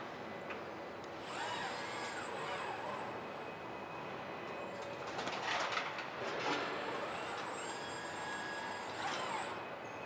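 Body-shop machinery noise from KUKA industrial robot arms on a car assembly line: their drives whine up and down in pitch as the arms move, over a steady factory hum, with a few short hisses around the middle and near the end.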